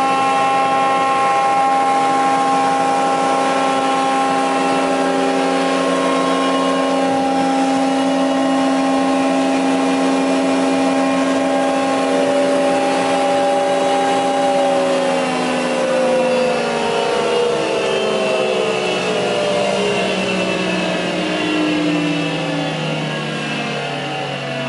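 ŻEFAM DSZA 40 jointer-planer running with no load, its motor and cutterhead giving a steady whine. About fifteen seconds in it begins to wind down, the pitch falling steadily as it slows.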